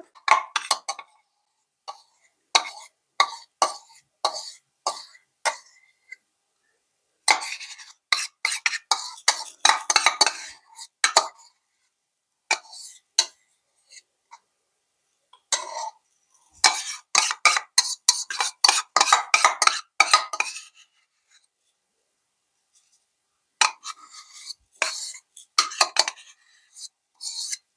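Metal spoon scraping the inside of a ceramic bowl and clinking against the rim of a small glass jar as thick cream is spooned into the jar. It comes in three bouts of rapid scrapes and clicks with short pauses between them.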